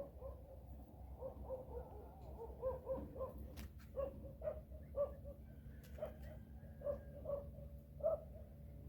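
A small animal making short, high cries over and over, about two or three a second, with a few faint clicks in between.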